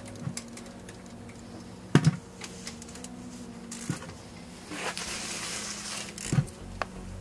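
Ratchet wrench clicking and steel wrenches clinking as the lower caliper bolt on a Toyota Sienna front brake caliper is tightened, with a sharper metal knock about two seconds in and more about four and six seconds in.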